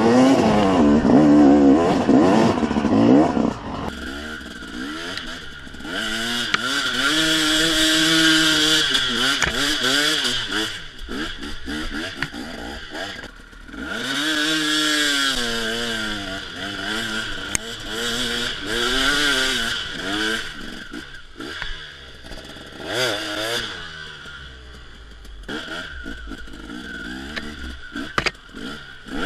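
A 250 cc two-stroke enduro motorcycle riding off-road, its engine revving up and falling off again and again as the throttle is worked through gear changes. It is loudest in the first few seconds.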